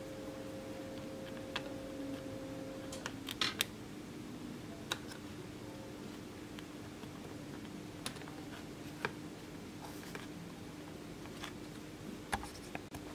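Scattered small clicks and taps as component leads are pushed through and bent on a printed circuit board, a few of them in quick succession about three and a half seconds in, over a steady background hum.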